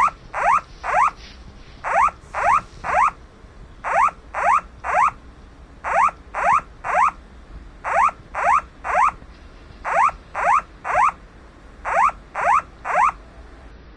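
Japanese Earthquake Early Warning alarm sounding: a loud, repeating pattern of three quick rising tones, with a new group of three every two seconds.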